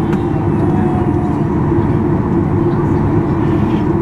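Boeing 737-800 cabin noise while taxiing: the CFM56 turbofan engines at low taxi power giving a loud, steady drone with a strong low hum.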